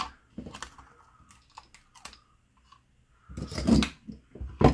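Handling noise as a metal LED backing plate is pulled away from a plastic light housing held with foam double-sided tape: small clicks and scrapes, then a louder scraping rasp about three and a half seconds in and a sharp click just before the end.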